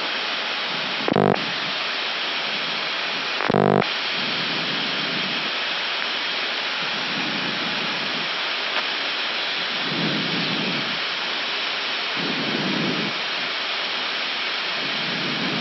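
Steady rushing airflow and air-conditioning noise in an Airbus A319 cockpit, descending with the engines at idle thrust. Two short buzzy clicks stand out, about a second in and again just before four seconds.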